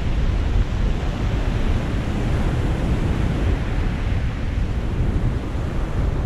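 Surf breaking and washing up a pebble beach, with steady wind rumble on the microphone.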